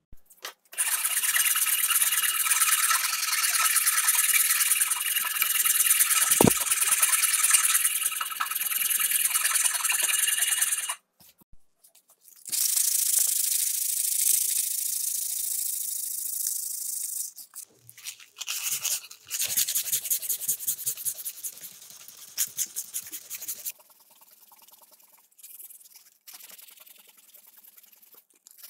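Hand-sanding a wooden knife handle with sandpaper: fast back-and-forth rubbing strokes in long stretches with short pauses. The stretches grow quieter near the end.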